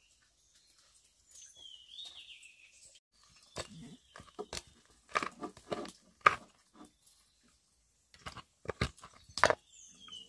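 Rice bowls and chopsticks clinking and knocking during a meal, a scatter of sharp clicks that grows busier after a few seconds. A bird chirps once near the start.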